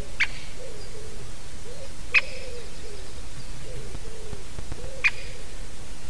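A woodpecker calling close by: three short, sharp calls, about two to three seconds apart. Beneath them, a low, rising-and-falling call repeats over and over.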